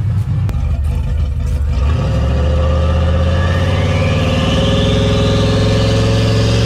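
Turbocharged SN95 Mustang's engine running with an uneven low rumble, then about two seconds in it pulls to higher revs and holds there, rising steadily while a thin whine climbs in pitch as the car slides sideways.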